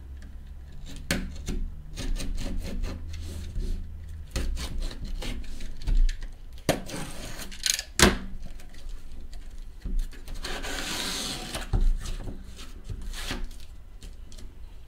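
A taped cardboard shipping case being handled and opened by hand: a run of scrapes, rubs and sharp knocks of cardboard, with a longer scratchy stretch about two-thirds through as the case is opened.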